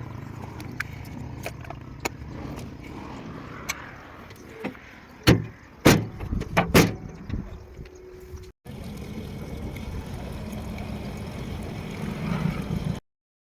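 Heavy diesel machinery engine running steadily, with scattered clicks and a few loud knocks about five to seven seconds in; the sound breaks off briefly near two-thirds through, then the engine resumes.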